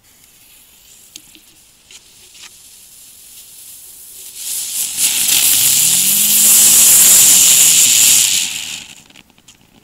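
Ground-spinner fireworks from a Lesli Spinner Pack igniting. They begin as a faint sputtering hiss with a few small crackles, swell about four seconds in to a loud high-pitched fizz, and carry a low hum that rises and then falls in pitch as they spin up and slow. They burn out about nine seconds in.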